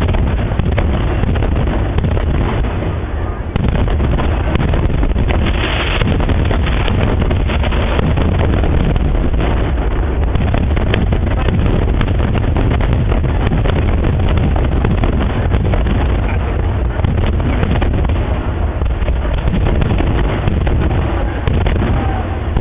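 Fireworks exploding in quick succession, the many bangs overlapping into a continuous booming rumble, with a brief brighter burst about six seconds in.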